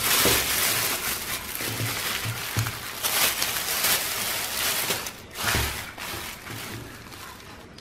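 Thin plastic bag crinkling and rustling as a cardboard takeaway box is pulled out of it and out of a mesh net bag, with a few dull bumps of the box being handled. The rustling dies down near the end.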